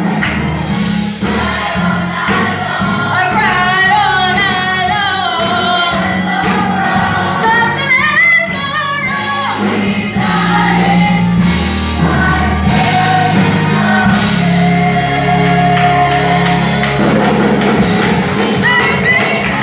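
Gospel music with a choir singing over sustained bass and keyboard chords.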